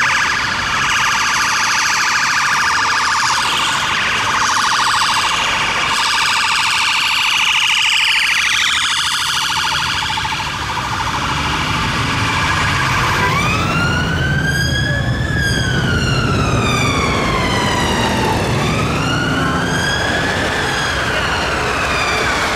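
Emergency vehicle sirens on the road. First a fast yelping siren whose pitch slides lower before it fades about ten seconds in. Then a slow wail siren rises and falls in long sweeps of about five seconds each, over an engine's rumble.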